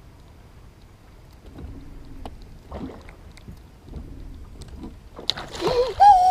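Low water and wind noise, then about five seconds in a splash and a loud, drawn-out yell that rises and wavers in pitch as a big spotted bass strikes the lure at the boat.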